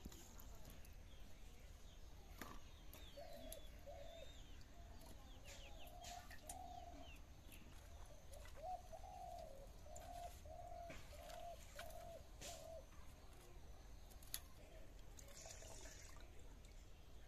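A dove cooing faintly in a long series of repeated coos, with thin chirps of small birds and a few light clicks alongside.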